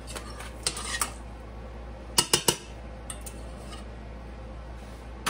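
Metal spoon stirring and clinking against a stainless steel saucepan: scattered light clinks, with three sharp clinks in quick succession about two seconds in.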